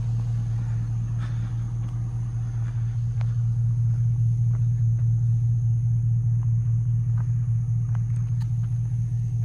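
An engine running steadily with a deep, even hum. It gets a little louder about four seconds in and eases off again near the end.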